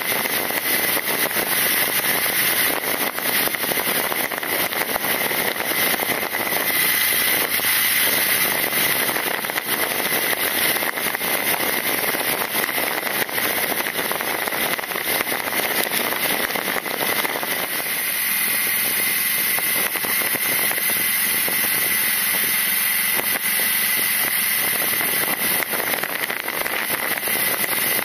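BMW R nineT motorcycle riding at a steady speed, heard from a fork-mounted camera: wind rushing and crackling over the microphone, with road and engine noise beneath.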